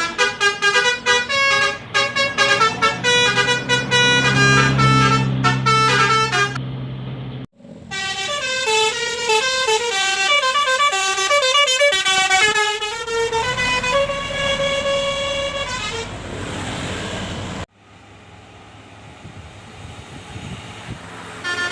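Indonesian bus 'telolet' musical horns of the Basuri type playing quick melodic tunes of rapidly changing notes, in several clips cut one after another. The sound breaks off abruptly about a third of the way in and again near the end, where a quieter, hissier stretch follows.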